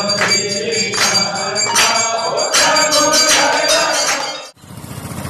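Metal bells struck again and again, each stroke ringing on with clear high tones. The ringing cuts off suddenly about four and a half seconds in, and a steady low engine-like rumble follows.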